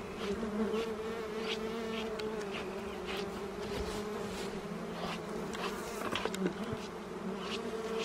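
Wild honey bees buzzing around a freshly cut honeycomb: a steady hum with scattered light clicks and rustles over it.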